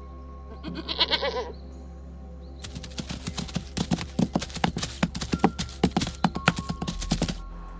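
A goat bleats once, briefly, about a second in. From about a third of the way in, a herd of zebras gallops: a rapid, irregular clatter of hoofbeats that stops shortly before the end.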